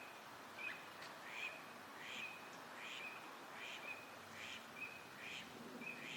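Eurasian wigeon whistling: a run of about eight short, high whistled calls, one roughly every three-quarters of a second.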